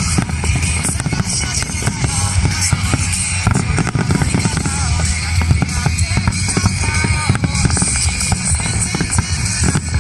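Music with heavy bass and drums, mixed with a dense run of fireworks bangs and crackles.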